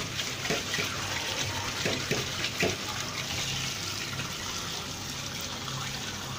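Cold tap water running steadily into a metal mesh sieve full of small dried omena fish, with a few short clicks in the first three seconds as the fish are turned under the stream.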